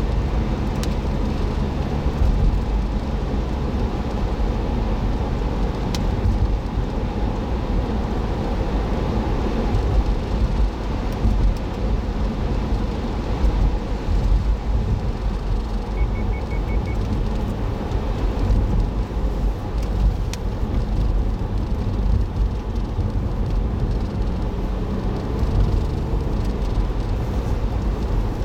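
Car driving, heard from inside the cabin through a dashboard camera: a steady low engine and road rumble, with a few faint clicks.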